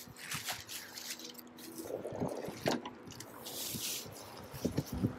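Bubble wrap and a soft plastic foam wrapping sheet rustling and crinkling as hands pull them open, with irregular crackles and sharp clicks.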